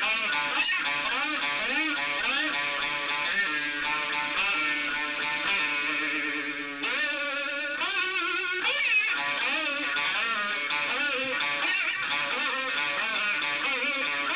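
Lowebow Cat diddley bow played blues-style through a 1957 Fender Champ amp and MXR Distortion Plus pedal, with notes sliding up and down in pitch. One note is held for a couple of seconds before a sudden break and rising slides about seven seconds in.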